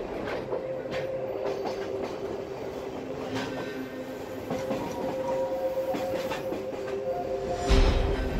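Sagano Scenic Railway train heard from on board, running along the track: wheels click over rail joints above a steady drone. A louder low rumble comes in near the end.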